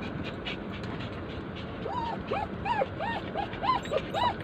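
Poodles whining in a car's back seat: a run of short, high whimpers that rise and fall, about two or three a second, beginning about two seconds in over a steady background hum. This is the dogs fretting at being left by their owner.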